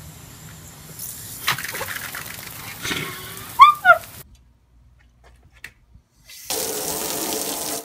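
Water spraying from a garden-hose sprinkler on a wet concrete patio, with a toddler's two short high squeals, the loudest sounds, a little before halfway. Then almost nothing, and a steady hiss for about a second near the end.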